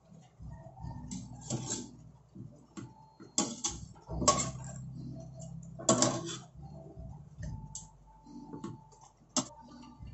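Metal utensil scraping and knocking against a stainless steel pot as pork steak pieces are turned in their sauce: a handful of sharp clinks and scrapes a second or two apart, over a low steady hum.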